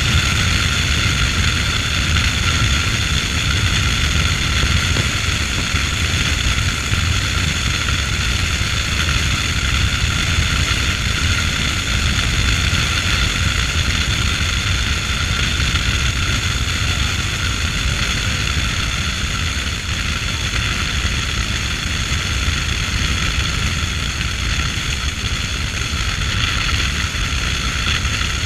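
Wind and road noise from a Chevrolet D-Max pickup driving at a steady speed, picked up by a camera mounted on the outside of the body. It is a constant low rumble with a steady hiss above it.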